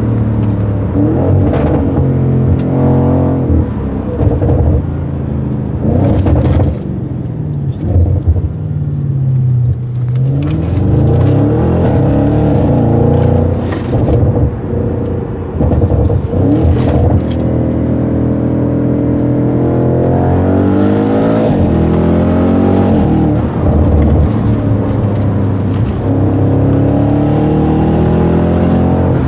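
Audi RS6 Avant C7's twin-turbo 4.0-litre V8 through a Milltek exhaust, revving and accelerating hard, its pitch repeatedly falling and climbing again through the gears. A few sharp exhaust crackles break in along the way.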